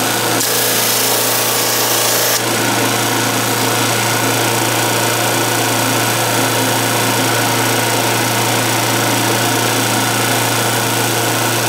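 Flatmaster drum sander running steadily with a constant hum, its sandpaper-wrapped drum spinning. For about two seconds near the start a brighter hiss is added as a pine strip is sanded against the drum.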